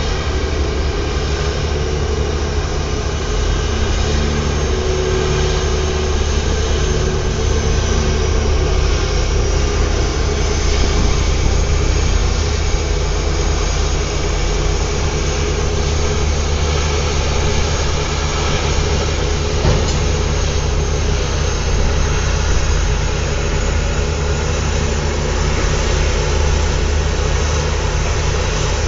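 Offshore pedestal crane's engine and hydraulic power unit running steadily, a constant heavy low drone with a hum.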